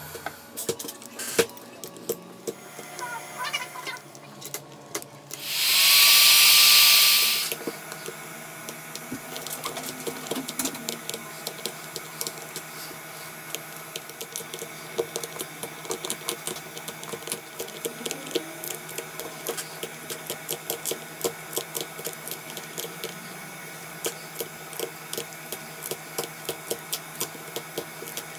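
Small hand tools clicking and scraping against an iPhone 8 Plus's glass back and frame, many quick irregular ticks. A loud hiss lasts about two seconds near the start.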